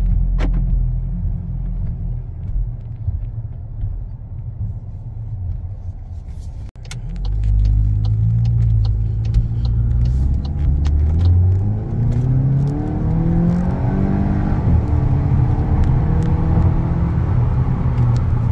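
Volkswagen Golf GTI's 2.0-litre turbocharged four-cylinder heard from inside the cabin while driving. A low steady rumble for the first few seconds gets louder about a third of the way in, then the engine pitch rises as the car accelerates, drops back at a gear change, and rises again through the next gear.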